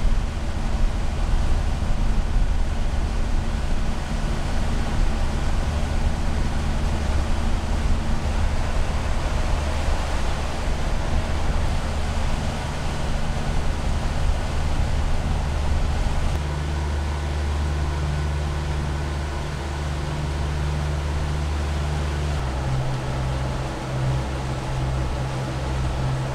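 Sailing catamaran's inboard diesel engines running steadily while motoring upriver, a low hum over wind and water noise. The hum shifts to a different steady pitch twice in the latter half.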